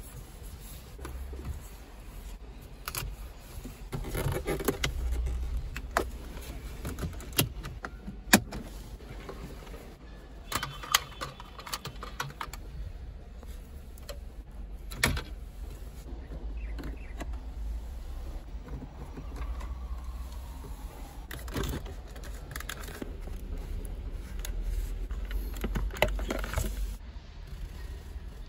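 BMW F30 plastic dashboard trim, clips and connectors being pried, unplugged and handled: scattered sharp clicks and snaps with rustling and rattling between, the loudest snaps about eight and fifteen seconds in.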